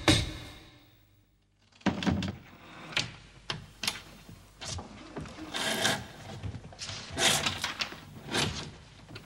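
Cord and rope being handled and pulled taut, heard as irregular knocks, clicks and rustling that begin after a brief hush about two seconds in.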